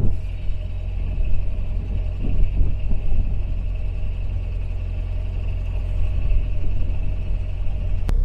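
A narrowboat's engine running steadily under way, with wind rumbling on the microphone.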